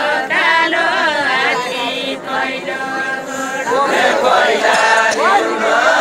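Group singing of a Deuda folk song, unaccompanied and chant-like. A note is held through the middle, and a new sung line starts about four seconds in.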